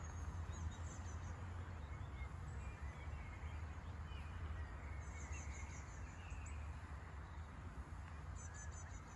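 Steady low rumble and hiss of open-air background, with small birds chirping and giving short, quick high trills now and then.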